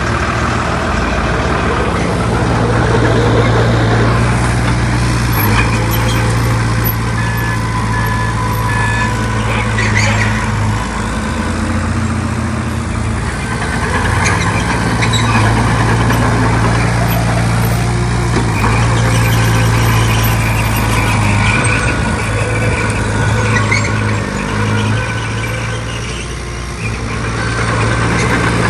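Heavy diesel engine of earthmoving machinery running continuously, with a few brief changes in its note and a short dip in level near the end. A faint series of three short beeps sounds about seven to nine seconds in.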